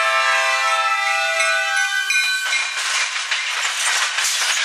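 MBTA commuter rail EMD F40PH diesel locomotive sounding its horn as it passes close by, the chord dipping in pitch and cutting off about two seconds in. Then the locomotive and coaches rush past with loud wheel and rail clatter.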